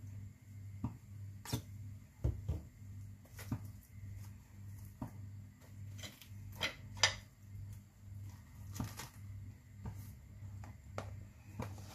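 Soft clicks and taps of hands handling bread rolls in a plastic lunch box, with one sharper click about seven seconds in, over a low hum that pulses about twice a second.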